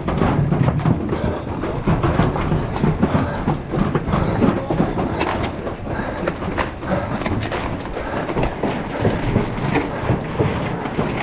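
Mountain bike ridden fast over rough ground, a continuous rattle and clatter with many small knocks, recorded on a GoPro action camera carried on the bike or rider.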